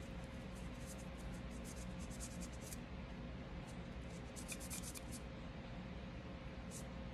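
Cloth rubbing and scrubbing inside a Smith & Wesson M&P Shield Plus 9mm pistol slide, in quick scratchy strokes, in two spells: through the first three seconds and again around four to five seconds in.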